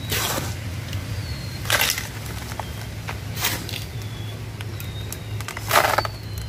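Hands scooping a gritty potting mix of garden soil and carbonized rice hull and packing it into a pot around a tree's roots: four rough rustling scrapes about a second and a half apart, over a steady low hum.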